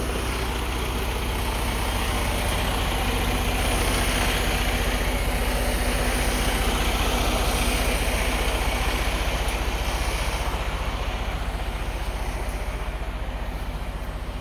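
A road vehicle passing: its engine and tyre noise swell over about eight seconds, then fade, over a steady low engine hum.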